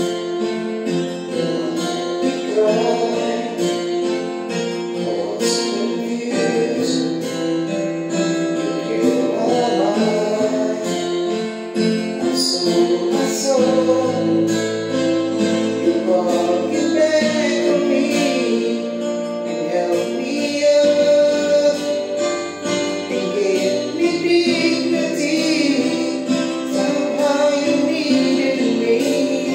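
Background music: a sung song over strummed acoustic guitar.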